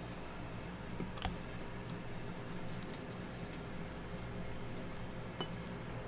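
Scattered small clicks and taps over a steady background hum, with a sharper click about a second in.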